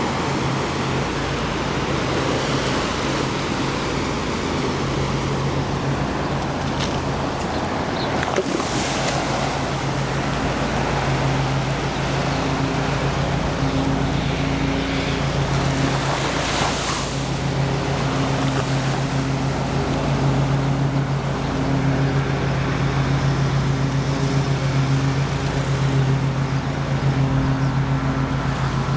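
Waves washing onto a beach, two of them swelling up about a third and two thirds of the way through, over the steady low hum of an engine that grows louder about halfway through.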